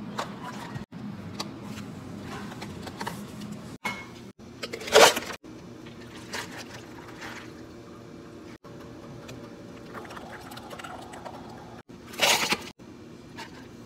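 Iced-drink making at a café counter: plastic cups handled and set down, then ice cubes poured into a clear plastic cup with a loud clatter about five seconds in. A second loud burst of pouring comes near the end, over a low steady hum.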